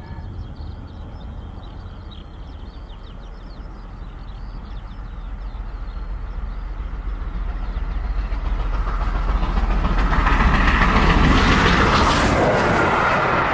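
Model LNER Class A4 locomotive and its train running fast on a model railway layout, the rumble and rattle of motor and wheels on the track growing steadily louder as it approaches and passes close by about ten to twelve seconds in.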